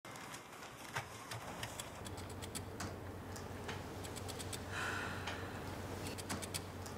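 Irregular light clicks of typing on a laptop keyboard, over a faint steady low hum.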